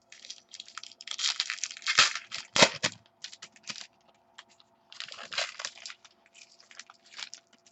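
Trading cards and pack wrappers being handled: irregular rustling and crinkling in short bursts, with a couple of sharp clicks about two seconds in.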